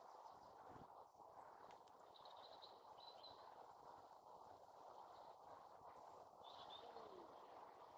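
Near silence: a low, steady background hiss with faint bird chirps, a short run of them a couple of seconds in and another near the end.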